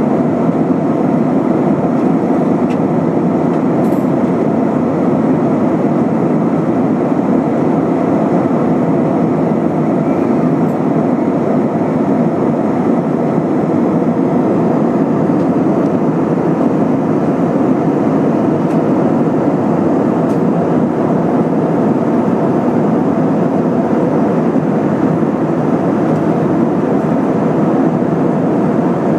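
Steady cabin noise inside an airborne Airbus A320-232: a loud, even drone of its IAE V2500 turbofans and airflow over the fuselage.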